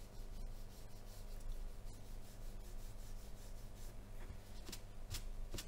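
Flat watercolour brush rubbing across watercolour paper in faint, short horizontal strokes, lifting light streaks out of a painted water surface, over a low steady hum.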